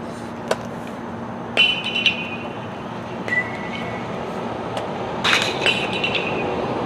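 A handful of sharp metallic clinks, the two loudest (about one and a half and five seconds in) ringing on briefly with a high bright tone, over steady outdoor background noise.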